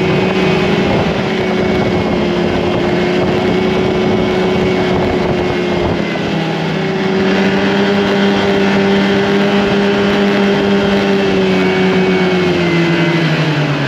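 Polaris 550 snowmobile's two-stroke engine running at a steady cruise from the rider's seat, with rushing wind noise over it. Its note drops near the end as the throttle eases off.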